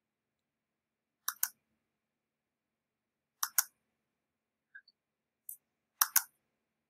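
Clicking of a computer mouse: three quick double clicks about two seconds apart, with a couple of fainter ticks between the second and third.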